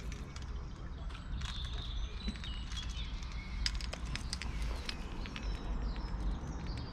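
Small birds chirping and calling: short high chirps and a few descending whistles, with scattered sharp clicks, over a steady low rumble.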